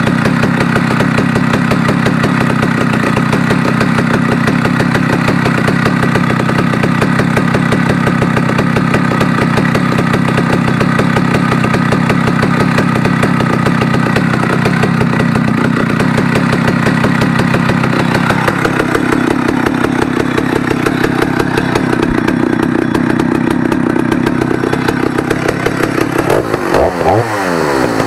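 Stihl 050 AV chainsaw's two-stroke engine idling steadily, its note shifting about two-thirds of the way through. Near the end the revs rise and fall as the throttle is blipped.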